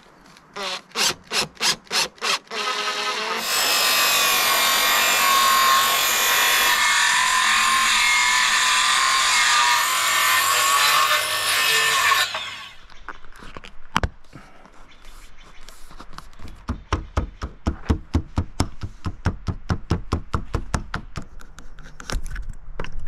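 Circular saw cutting a kerf along the bottom edge of a solid cedar door: a few short bursts on the trigger, then a steady cut for about nine seconds before the blade winds down. After a single knock comes a quick run of hammer taps, three or four a second, driving a door-sweep seal into the kerf.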